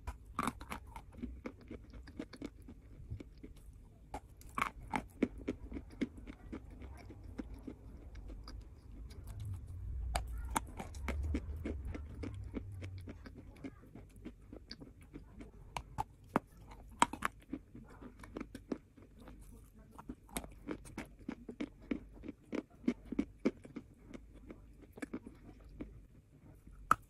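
Close-up biting and chewing of a block of white chalk: repeated sharp crunches scattered throughout, with a low rumble from about 9 to 13 seconds in.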